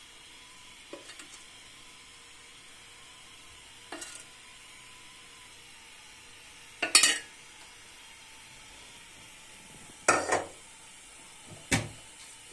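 Kitchenware clattering in five short knocks, the loudest about seven and ten seconds in, over a faint steady hiss.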